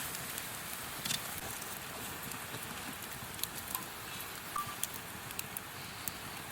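Food sizzling in a pot over a wood campfire: a steady hiss with scattered small crackles and pops.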